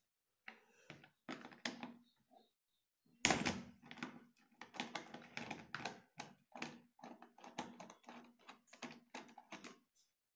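Hands working on a cardboard box while fitting a wire to switch and socket terminals: irregular taps, knocks and small clicks, with a louder knock about three seconds in.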